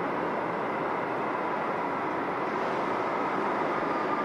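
Eurotram tram running on its rails: a steady running noise with a faint high whine that grows a little clearer in the second half.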